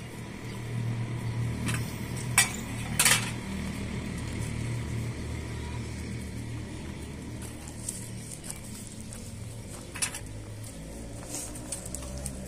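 Steel utensils clinking as food is served and eaten: a spoon or ladle knocking against a steel pot and bowls, with sharp clinks about two and three seconds in and again near ten seconds, over a low steady hum.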